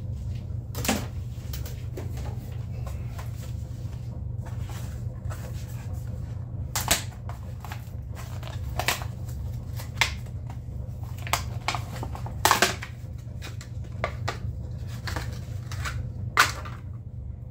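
Scattered clicks, light knocks and rattles of hands working a snowmobile's battery wiring and plastic plug connectors, with half a dozen sharper clicks spread through. A steady low hum runs underneath.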